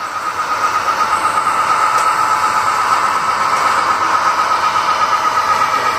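Model diesel locomotive and its train running along the track onto a trestle: a steady whirring rumble with a quick, regular pulse.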